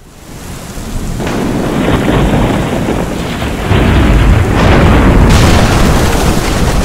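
Cinematic logo-intro sound effect: a thunder-like rumble with rain-like hiss, swelling up from silence and growing louder, with a sudden brighter rush of hiss about five seconds in.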